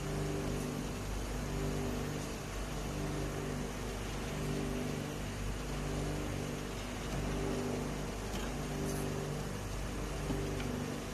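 Hot oil bubbling and sizzling in an electric batch fryer as sweet potato chips fry and are stirred, with a low mechanical hum that cuts in and out about every second.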